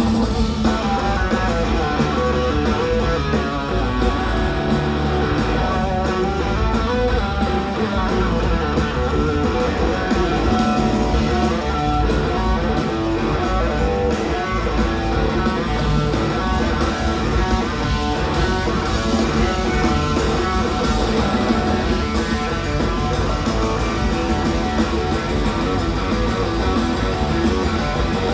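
Live band jam: an electric guitar plays lead over bass guitar, keyboards and drums, at a steady loud level.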